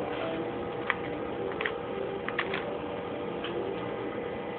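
Plastic Rubik's Cube layers clicking as they are twisted: a handful of irregular clicks, three in quick succession about two and a half seconds in, over a faint steady hum.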